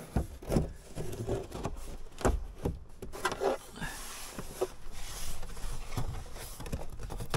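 Hands pressing and patting a thin plywood panel into place on a van's interior side wall: irregular knocks, taps and rubbing.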